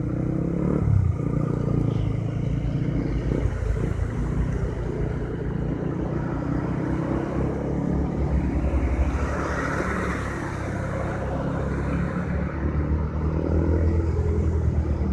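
A Honda CB150R's single-cylinder engine and the surrounding traffic running at low speed in a jam, a steady low rumble. A rushing swell of noise rises and fades about ten seconds in.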